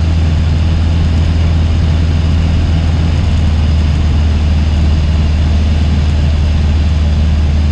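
Cessna 150's four-cylinder Continental O-200 engine and propeller running steadily in flight, heard inside the cabin as a loud, even drone with a strong low hum.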